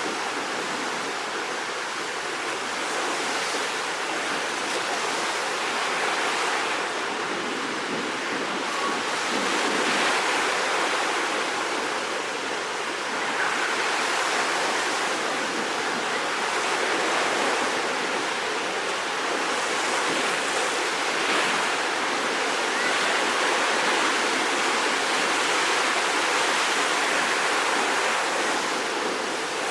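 Rough sea surf churned up ahead of a typhoon: a steady rush of breaking water that swells and eases every few seconds.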